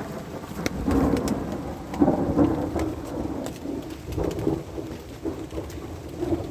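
Thunder rumbling, loudest about one and two seconds in, with rain ticking on the truck's aluminum camper cap overhead.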